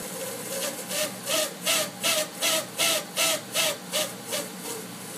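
Geothermal heat pump valve making its periodic noise: a quick run of about a dozen hissing chirps, close to three a second, each with a short rising-and-falling tone. The chirps fade out near the end, over a steady hum.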